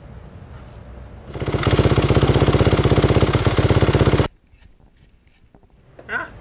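Dirt bike engine running with a fast, even pulse. It fades in and cuts off abruptly about four seconds in. A short high whine follows near the end.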